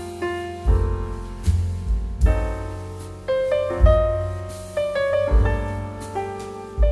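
Background music: a piano playing slow, sustained chords over low notes struck about every three-quarters of a second, each note ringing and fading.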